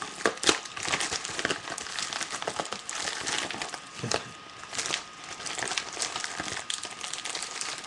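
Packaging of a mailed parcel crinkling and rustling as it is handled and worked open, with a dense run of small irregular crackles and clicks.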